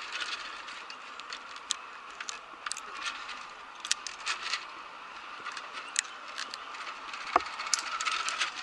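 Irregular sharp metal clicks and clinks of climbing gear: carabiners and lanyards knocking against steel rungs fixed in a tree trunk as a climber descends the rung ladder, over a faint steady hiss.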